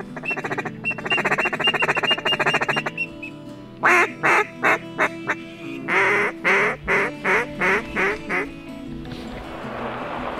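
Duck quacking in the pattern of a hen mallard: a fast chatter for about two seconds, then two runs of loud, separate quacks that each fall in pitch. Sustained background music plays underneath, and a steady hiss builds near the end.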